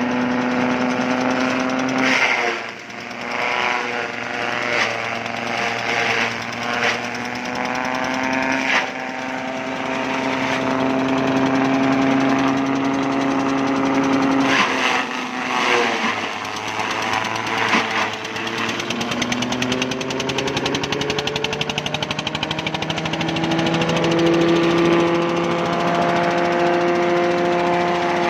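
Corn silage chopper driven by a 10 hp air-cooled Kirloskar diesel engine running, the engine note sagging and picking up again as it takes load, with sharp cracks of the blades cutting through green corn stalks.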